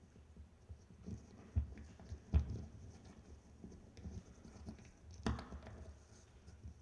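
Footsteps and shuffling of people climbing carpeted steps, with a few dull thumps, the loudest about two and a half seconds in and another a little past five seconds.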